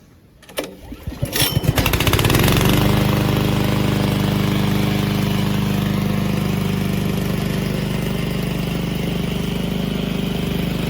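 Gasoline engine of a remote-control lawn mower pull-started with its recoil cord. It sputters into life about a second in, catches within another second, then runs steadily.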